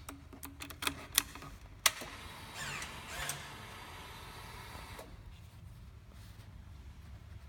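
Ducati Monster 1100 Evo with its engine cold making a strange mechanical noise: a run of sharp clicks over a steady hum, then a whirring buzz that stops abruptly about five seconds in.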